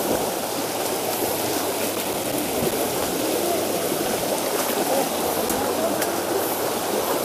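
Steady rush of a shallow, fast-flowing river, with people wading through it on foot.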